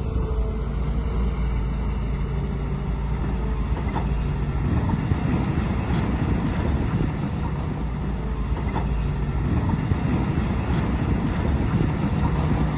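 Heavy earthmoving machinery running steadily, its engine drone with occasional light clanks.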